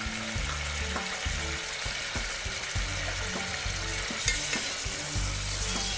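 Fenugreek leaves sizzling and frying in hot oil in a pressure cooker. A steel ladle stirs them, scraping and clinking against the pot, with a sharper clink a little after four seconds in.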